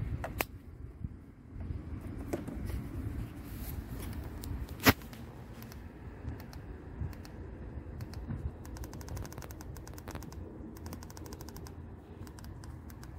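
Handling clicks and knocks as a handheld battery tester's clamps are fitted to the terminals and its buttons are pressed, with one sharp click about five seconds in. In the second half come two rapid runs of even ticks, about a second each.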